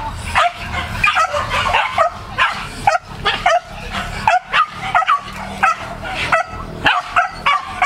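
Leashed hunting dogs yelping and barking excitedly in a rapid, continuous run, about two or three short sharp yelps a second, as they strain toward a wild boar piglet.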